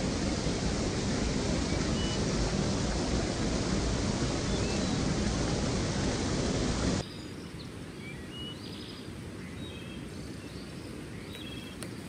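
Small woodland stream rushing over rocks in a cascade, a loud, steady rush of water. About seven seconds in it cuts off suddenly to quieter forest ambience with small birds chirping.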